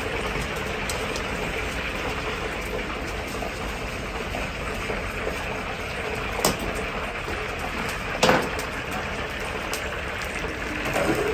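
Steady roar of a commercial kitchen's wok range. Two sharp metallic clinks, about six and a half and eight seconds in, come as wire strainers full of fried chicken are set down on steel pots.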